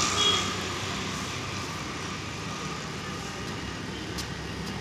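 Steady hum of road traffic, with no distinct events apart from a couple of faint ticks near the end.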